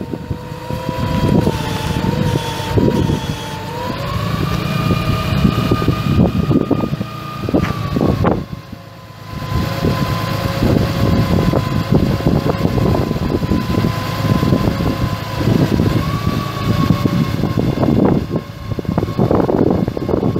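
The bucket truck's 6.7-litre straight-six turbo diesel running, with a steady whine that steps up in pitch about four seconds in and drops back about eight seconds in. Irregular low buffeting runs under it.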